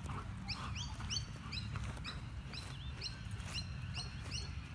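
A bird calling over and over: short, quickly rising chirps, about two or three a second.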